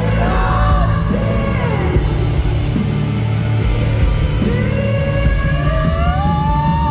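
Live pop-rock band music with a voice holding long sung notes, one rising in pitch through the last couple of seconds, heard as a concert recording.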